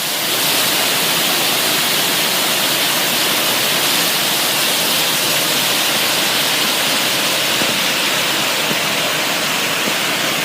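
Rushing water, a steady loud rush of flowing water.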